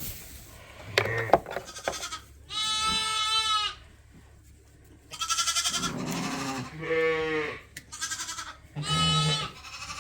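Sheep bleating: four separate calls a second or two apart, the one around seven seconds in lower-pitched than the others. A few light knocks come before the first call.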